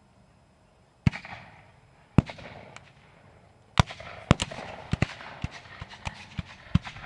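Black-powder muzzle-loading muskets firing blank charges: a single shot about a second in, another a second later, then a ragged, uneven run of many shots from about four seconds in, each shot followed by a short echo.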